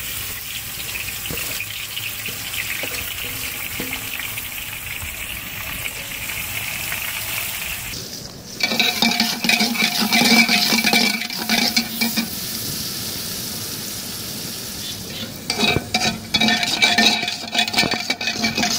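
Sliced onions sizzling in hot ghee in a large metal degh. About halfway through, and again near the end, a long iron ladle stirs and scrapes against the pot, clattering and ringing over the sizzle.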